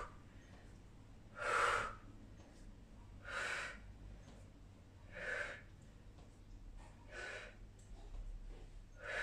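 A woman's forceful breath exhalations, one with each repetition of a stepping torso-twist exercise. They come as short huffs about every two seconds.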